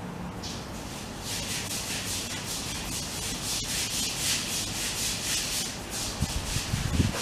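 Rapid dry rustling and crunching of grass as a sulcata tortoise bites and tears at a pile of fresh grass, in quick repeated rasps. A few low thumps follow near the end.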